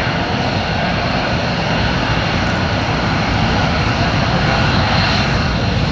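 KC-135 Stratotanker's four jet engines flying past: a loud, steady engine rush, with a thin high whine coming up near the end.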